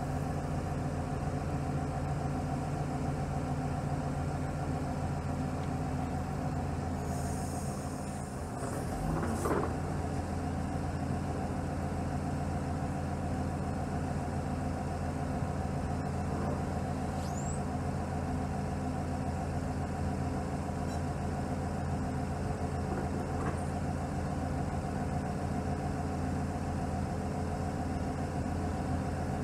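Laurini Muletrax 2500 crawler carrier's diesel engine running steadily while its hydraulic crane boom is raised and extended. There is a brief hiss and a slight dip in level about eight to ten seconds in.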